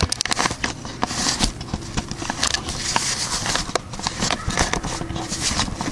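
Plastic bubble-wrap packaging crinkling and crackling as it is handled and unwrapped, a dense run of irregular crackles and rustles.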